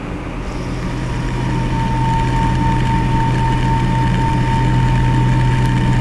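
Mill-turn lathe spindle spinning a heavy cast iron brake-rotor blank up to speed while a boring bar roughs out the bore dry, without coolant. A steady low hum with a whine that sets in about a second in; it grows louder over the first two seconds and then holds steady.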